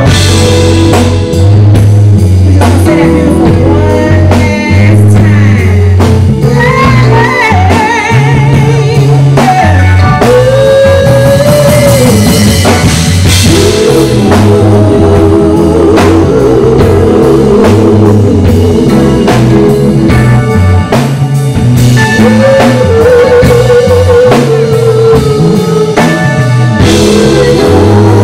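Live neo-soul band performance: a woman singing into a microphone over a drum kit and a steady, heavy bass line, loud through the PA.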